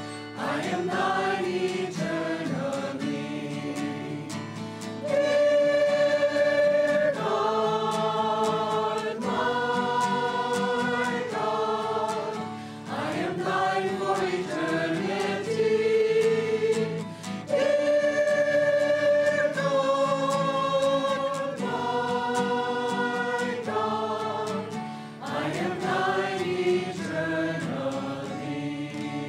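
Mixed choir of men and women singing a devotional song in long held notes.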